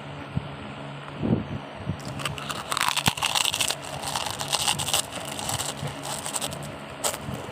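Chips being chewed: a dense run of crisp crunching starts about two seconds in and lasts some three seconds, with a few more crunches near the end, over a steady low hum.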